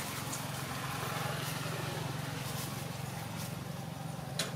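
A motor running steadily with a low hum and a hiss over it, and one sharp click near the end.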